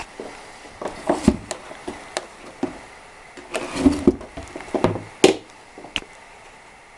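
Irregular clicks, knocks and short rattles from an Imperial Model 22 portable manual typewriter being handled and worked, with no steady typing rhythm.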